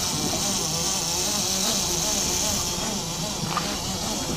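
Boat engine running steadily at trolling speed, a buzzing hum with a slight waver in pitch, over a hiss of water and wind.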